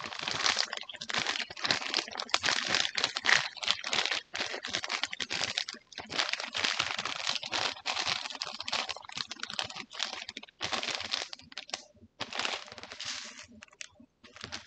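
Crinkly material being rustled and crumpled, crackling in long bursts broken by a few short pauses.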